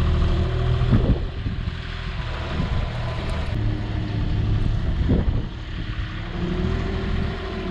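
Forklift engine running and changing revs, with a whine that falls away and then rises again as the machine works. Two short knocks come about one second and five seconds in.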